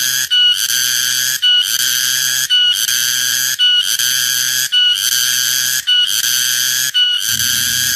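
Cicada calling loudly in a repeating pattern. A buzzing phrase about a second long opens with a short higher note and ends in a brief break, about seven times over.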